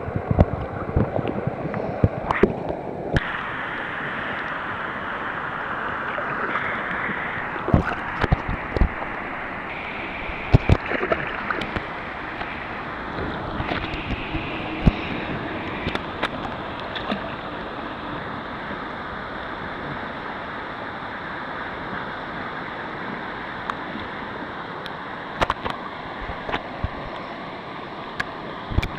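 Rushing water of river rapids, a steady rush with scattered sharp splashes close by.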